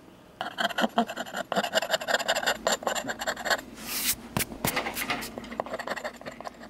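A thin metal blade scraping quickly back and forth over a coloured drawing on paper, smoothing out vertical streaks in the colouring. A dense run of scratchy strokes lasts about three seconds, then a handful of separate strokes follow.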